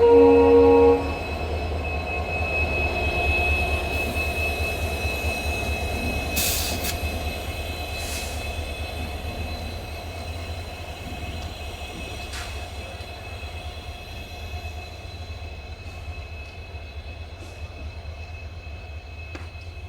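Twin WDG-4 diesel locomotives (EMD 16-cylinder two-stroke engines): a horn blast cuts off about a second in, then the deep engine hum goes on with a steady high whine over it. It fades gradually, with a few sharp clicks.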